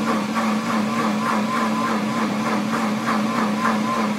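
Motor of a Pampered Chef Deluxe Cooking Blender running steadily through a timed program, a constant hum with a faint regular pulse in it.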